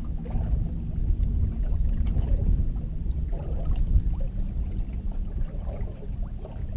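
Wind rumbling on the microphone aboard a small fishing boat drifting on the water, with a low steady hum underneath and faint small ticks and splashes.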